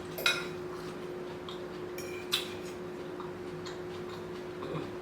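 Eating utensils clicking against a dish: two sharp clinks, about a quarter second in and just after two seconds, with a few lighter taps between. A steady hum runs underneath.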